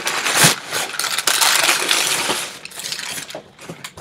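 Cardboard shipping box being torn open by hand, with the cardboard and its packing material ripping and rustling. The rustling is dense and loud for the first two and a half seconds, then thins to a few scattered crinkles.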